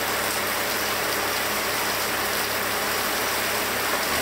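Steady hiss of rain falling on the barn's metal roof, with a faint low hum beneath.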